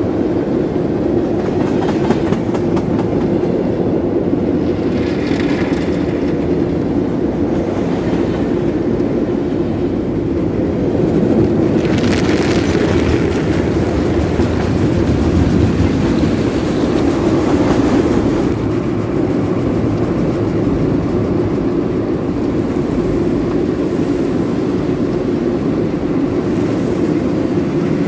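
Heavy rain pouring down and splashing, a dense steady rush that swells a little louder through the middle.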